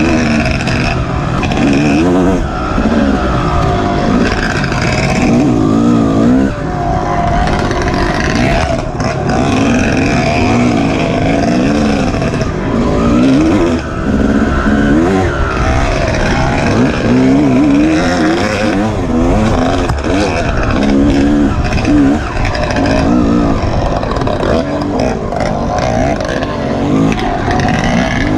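Off-road dirt bike engine revving hard and easing off over and over, its pitch climbing and dropping with each burst of throttle, with a steady rush of noise beneath.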